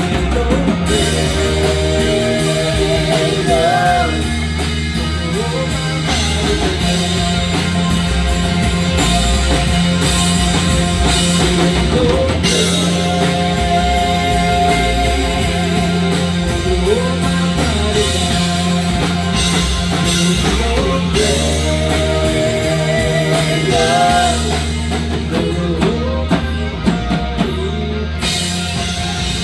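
Rock band playing: drum kit, bass and electric guitar, with a melodic line that bends and wavers in pitch above them.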